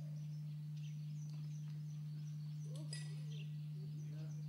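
A steady low hum, with faint, short bird chirps over it and one brief, clearer call about three seconds in.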